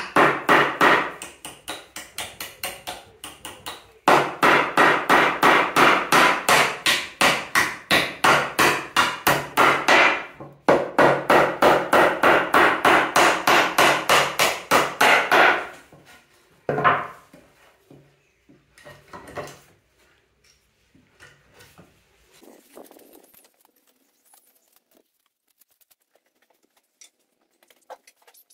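Hammer driving nails into pallet timber: fast, even runs of blows, about four a second, in three long runs broken by short pauses. The blows stop about fifteen seconds in; one more blow follows and then only faint knocks.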